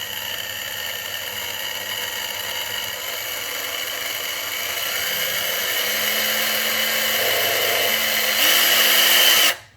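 Cordless power drill driving a screw into wood with a square-drive bit, its motor whining steadily and growing louder, then stopping abruptly near the end.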